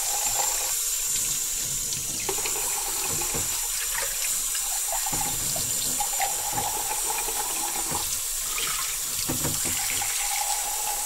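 Kitchen faucet running a thin stream of water into a glass measuring cup in a stainless steel sink: a steady, unbroken splashing rush.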